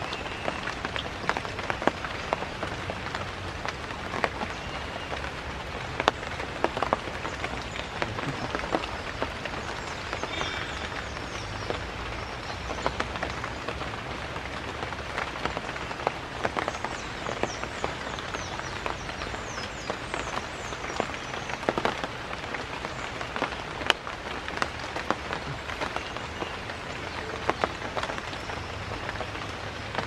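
Steady rain falling on broad leaves: a constant patter with sharp individual drop hits scattered throughout.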